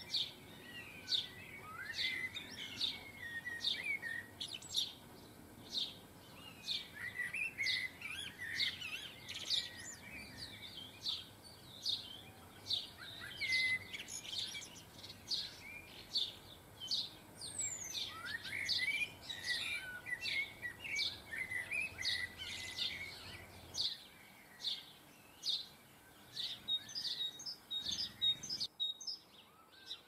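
Small garden songbirds calling: a steady run of short, sharp, high chirps, about one or two a second, broken every few seconds by bursts of quick, warbling twitter.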